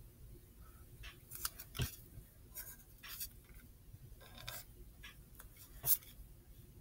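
Pencil scratching across paper in short, irregular sketching strokes, with a couple of sharp taps, the loudest near the end.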